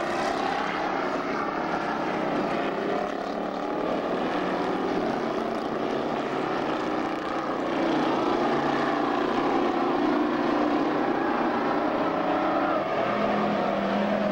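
Several dirt-track stock cars racing in a pack, their engines running hard together, the pitch wavering up and down through the turns. The sound gets louder about eight seconds in as the pack comes closer.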